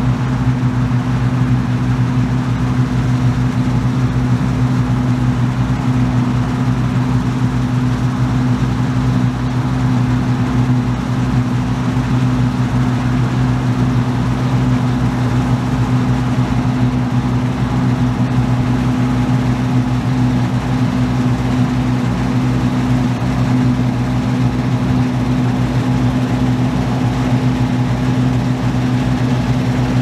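John Deere 1188 combine harvester cutting and threshing standing winter wheat: engine and machinery running at a steady, even pitch, with a regular low pulse beneath.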